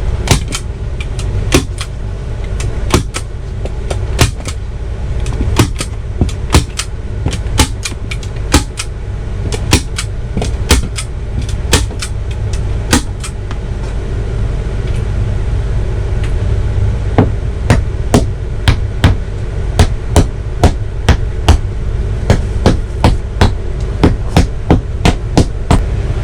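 A hammer driving small fasteners into a headboard, many sharp taps at an uneven pace that settle into a steady run of about two a second in the second half, over a steady low hum.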